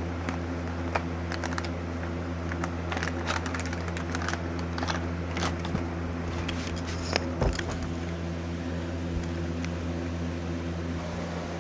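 Scattered clicks and crackles of plastic packaging being handled as a toy pack is opened, over a steady low hum.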